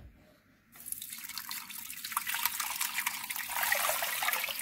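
Water poured from a plastic pitcher into a slow cooker crock over a beef roast. The splashing pour starts about a second in and grows louder toward the end.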